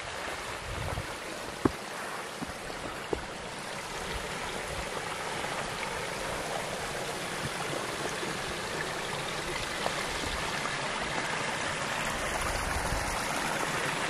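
Small stream running over rocks: a steady rush of water that grows slightly louder, with a few sharp clicks over it.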